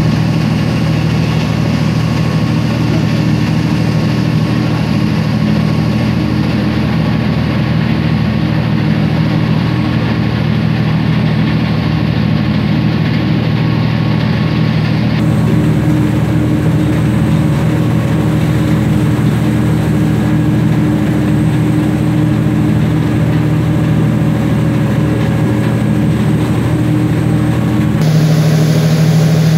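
Boat engine running steadily with a low, even hum. The sound changes abruptly about halfway through and again near the end.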